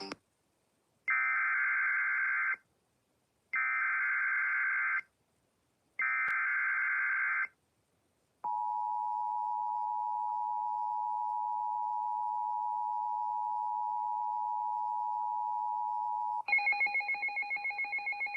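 Emergency Alert System broadcast opening. Three identical screeching bursts of the SAME digital header, encoding a Severe Thunderstorm Warning, are followed by the steady two-pitch EAS attention tone for about eight seconds. A different, rapidly pulsing electronic tone cuts in for the last two seconds.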